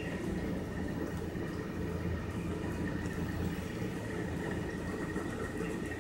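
Steady low background hum with a faint, thin high whine running over it; no coin scratching is heard.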